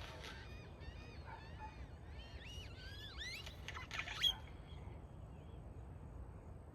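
Waterfowl calling faintly: a string of short calls that bend up and down in pitch, the loudest about four seconds in, over a faint low outdoor rumble.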